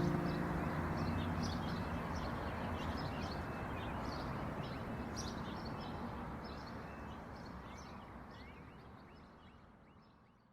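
Birds chirping over a steady outdoor hiss, the whole fading out toward the end.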